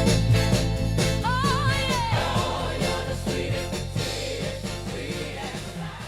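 A 60s Motown-style soul song with full band fading out, its volume dropping steadily; a short wavering sung phrase rises over the band about a second in.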